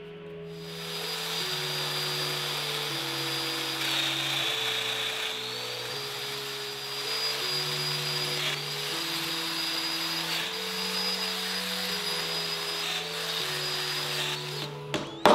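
Plunge router running along a guide rail as it cuts into a wooden desk panel: a steady high whine over the cutting noise, sagging in pitch for about a second around four seconds in as the bit takes load, then recovering. A couple of sharp knocks at the very end, with background music underneath.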